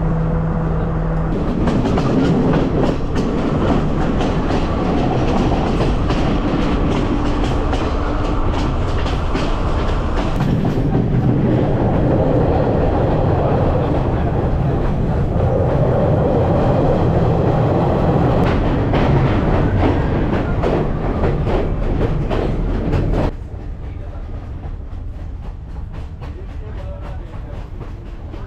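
Passenger train running along the track, its wheels clattering rapidly over the rail joints with a loud rumble. Near the end the sound drops abruptly to a quieter, duller rumble.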